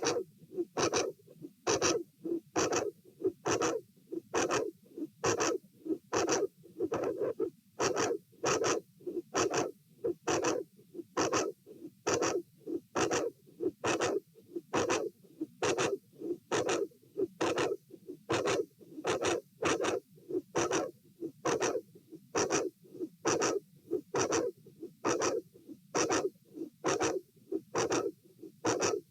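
Heart sounds heard through a stethoscope at the aortic area: a steady, evenly spaced heartbeat with a very loud mid-to-late systolic sound and a murmur with the second heart sound. The uploader takes the extra systolic sound for an aortic vascular click from a dilated aortic root.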